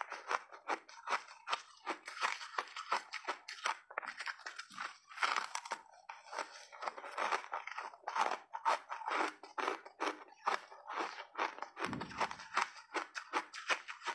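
Crunching and chewing of hard refrozen ice with mixed berries in the mouth: rapid crisp crunches, several a second. A dull low thump comes near the end.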